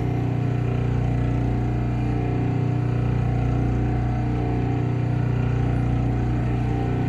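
The electric motor of a clipper-blade sharpening machine, with its grinding plate spinning, giving a steady low hum.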